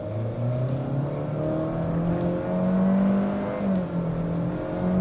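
2020 Honda Accord's 1.5-litre VTEC Turbo four-cylinder with CVT under full-throttle acceleration from a standstill, heard from inside the cabin. The engine note climbs in the first second, then holds high and nearly steady, dipping briefly in pitch a couple of times.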